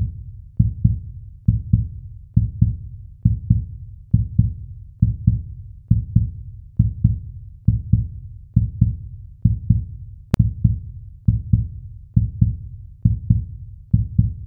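Heartbeat sound effect: a steady, low double thump (lub-dub) repeating a little faster than once a second.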